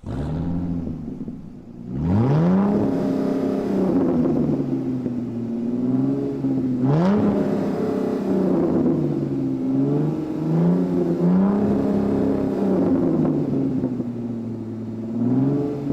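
A motorcycle engine running and being revved. It climbs in pitch about two seconds in, gives a sharp blip about seven seconds in, then rises and falls in a string of smaller revs.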